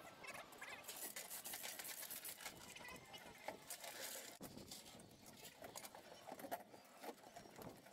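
Faint irregular clicking and rattling of a manual chain hoist's hand chain and load chain as a worker pulls it, hoisting a chimney cap. Faint voices under it.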